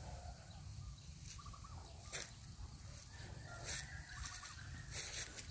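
Domestic fowl calling faintly in the distance, twice, each call a short quick run of notes. Underneath are a steady low rumble and a few brief rustles.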